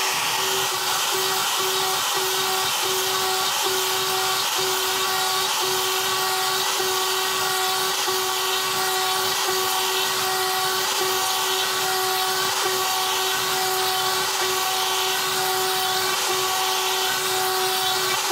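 A CNC router's trim-router spindle runs steadily with a high whine while an upcut bit carves concentric circular grooves into plywood, tearing up the surface veneer into ragged chips.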